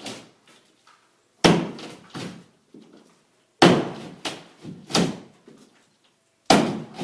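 Sledgehammer blows on a sheetrock (drywall) wall: four heavy strikes a second or two apart, each followed by a few smaller knocks of breaking wallboard.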